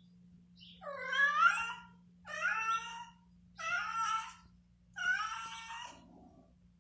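Domestic cat meowing four times in a row, each a drawn-out meow of about a second, the first the loudest.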